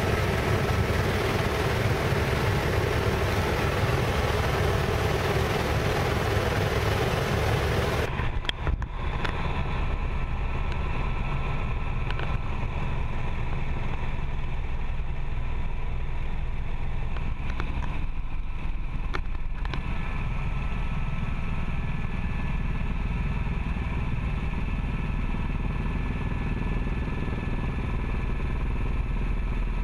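Helicopter cabin noise in flight: the continuous drone of the engine and rotor. About eight seconds in it changes abruptly from a bright hiss to a duller hum with steady tones.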